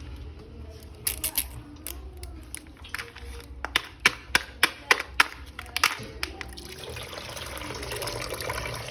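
Water pouring and splashing, with several sharp clicks and knocks, most of them in a quick run about halfway through.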